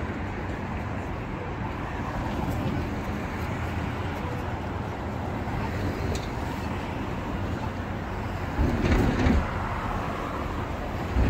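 Busy city street noise: a steady hum of traffic, with a louder low rumble lasting about a second some nine seconds in.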